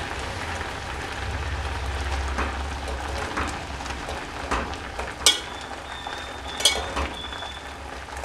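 Water boiling in a stainless steel pot of vegetables, a steady bubbling hiss. A metal spoon stirs the pot and clinks against the steel several times, with two clearer ringing clinks in the second half.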